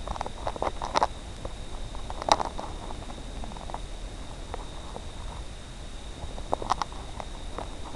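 Short animal-like squeaks in scattered clusters, about a second in, a little after two seconds and again near seven seconds, over a faint steady high whine.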